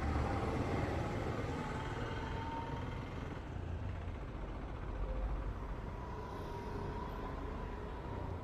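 Street traffic: the engines of passing cars and scooters running along the road, a steady low rumble with no sharp sounds.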